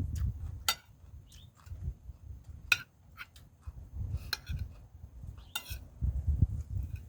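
Close-up eating sounds: chewing and mouth noises, with a spoon clicking against a plate or bowl four or five times.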